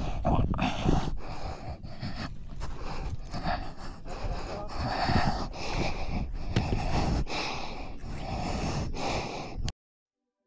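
Heavy breathing of a hiker exerting on a steep climb, over a low rumble. It cuts off abruptly near the end.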